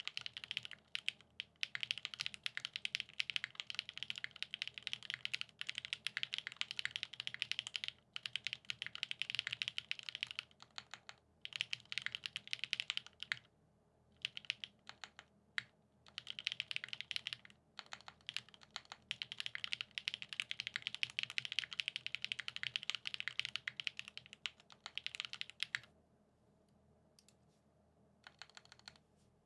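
Typing on a custom mechanical keyboard (TGR 910 v2 ME with a polycarbonate top-mount plate, lubed Gateron X SW Pure Berry linear switches and GMK keycaps), in fast runs of keystrokes with short pauses. The typing thins to a few scattered keystrokes near the end.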